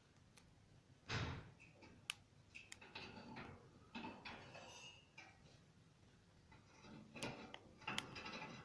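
Faint scattered clicks and taps with a few soft, short high chirps from pet parrots.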